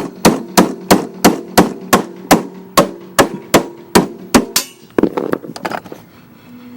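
Hammer blows on a lawn mower deck, about three strikes a second, with a ringing tone under them, then a few lighter taps near the end. The deck is being beaten out where the mower blade was hitting it.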